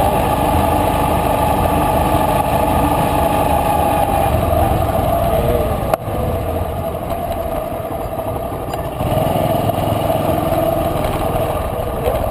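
Motorcycle engine running steadily at low speed, with a brief drop in level about six seconds in.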